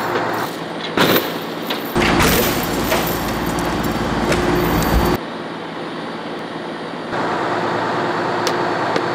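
An old boom truck's engine runs steadily while a log swung from its boom crashes down onto a car. There is a sharp bang about a second in and a heavy, noisy stretch of crashing from about two to five seconds in.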